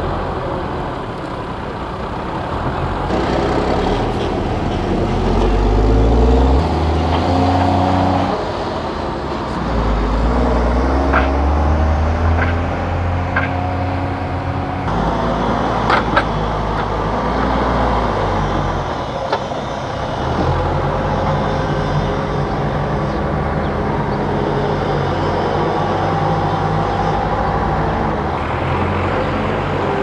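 Heavy diesel engines of a backhoe loader and a dump truck running, revving up and down with the engine pitch rising and falling as the machines work. A few sharp knocks come in the middle, the loudest about sixteen seconds in.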